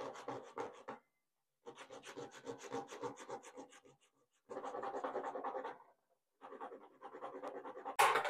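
A small piece of wooden craft stick rubbed back and forth on a sheet of sandpaper to smooth its freshly cut edges, in four short bouts of quick, faint rasping strokes. A brief louder swish near the end.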